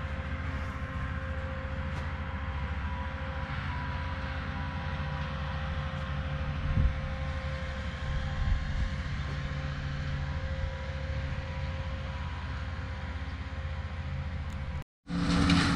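Heavy-equipment diesel engine running at a steady speed, with a steady hum and a faint whine over it. Near the end it cuts out for a moment and resumes at a different pitch.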